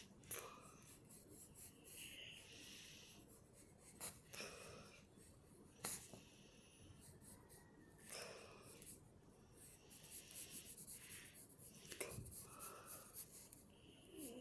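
Faint scratching of hand-drawing strokes, with a run of quick short strokes about ten seconds in, and heavy breathing close to the microphone.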